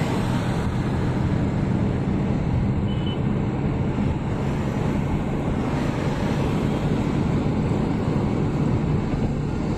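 Steady engine and tyre noise heard from inside a car's cabin as it drives along the road.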